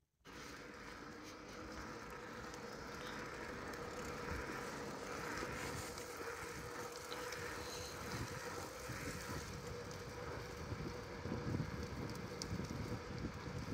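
Steady road noise from a moving car: tyre rumble and wind, with a faint steady hum. It cuts in abruptly right at the start.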